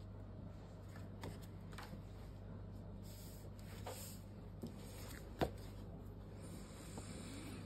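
Sheets of paper and card handled on a wooden tabletop: soft rustling and sliding, with a sharper tap about five and a half seconds in.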